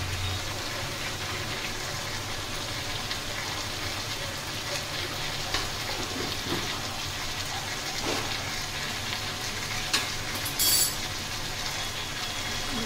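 Chicken pieces in masala sizzling steadily in oil in a metal kadai as they are sautéed dry (kosha), with a few light clicks of the metal spatula against the pan and one sharper clink near the end.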